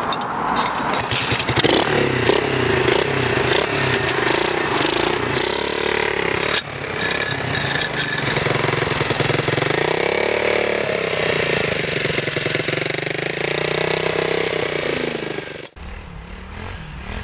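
125cc pit bike's single-cylinder four-stroke engine with a makeshift exhaust, revving as the bike pulls away and rides off, its pitch rising and falling with the throttle. Near the end the sound cuts suddenly to another pit bike engine.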